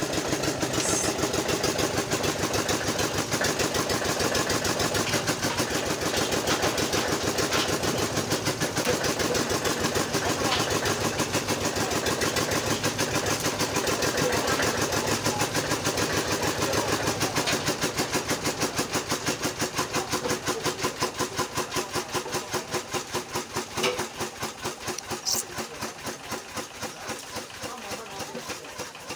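Stationary engine powering a palm-fruit mill, running with a fast, steady beat. It grows quieter over the last several seconds.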